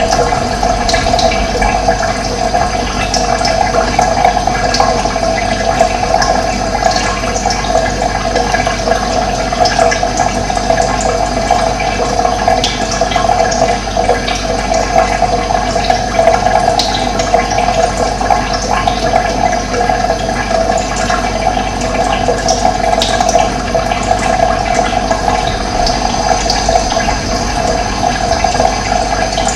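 Running water flowing steadily, with short high bird chirps scattered through it.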